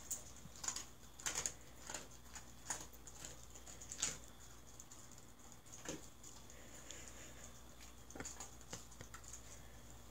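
A dog crunching dry kibble: a quick run of sharp crunches in the first few seconds, then only a few more.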